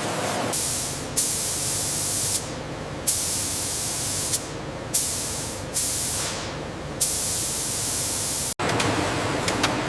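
Repeated bursts of pressurised spray hissing, about five, each starting sharply and tapering off, over a steady machine hum. The sound cuts off abruptly about eight and a half seconds in and changes after that.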